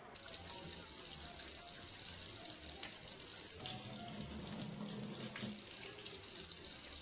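Running water with irregular louder moments, starting suddenly.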